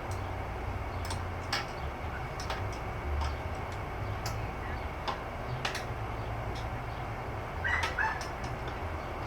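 A bird calls twice in short notes near the end, over a steady low hum with scattered light clicks.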